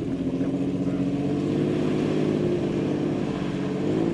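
Engine of a land-speed race vehicle running hard at steady high revs, its pitch creeping up, then rising sharply near the end.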